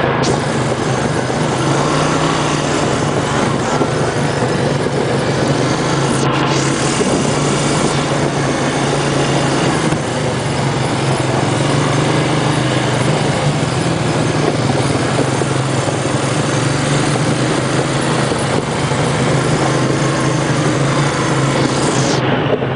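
ATV engine running steadily at an even pitch while riding, under a loud, constant rushing noise.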